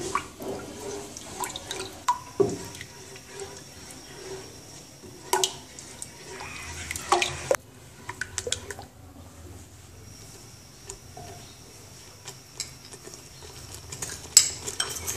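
Silicone spatula stirring tamarind and vinegar in a metal saucepan: wet sloshing and scraping, with scattered knocks of the spatula against the pan, the loudest near the end.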